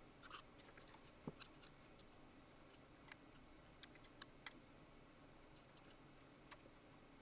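Near silence, with faint, scattered light clicks and taps from hands working on a Digidesign 003 console as it is being closed up.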